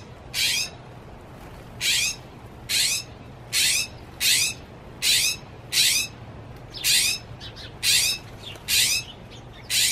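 Northern mockingbird giving a short, harsh call over and over, about once a second, each call slurring slightly downward, with a few fainter, softer notes between them near the end.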